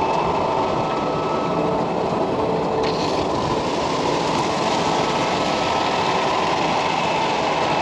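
Concrete mixer truck running steadily while water from the fill station pours into its drum, an unbroken mechanical drone mixed with rushing water.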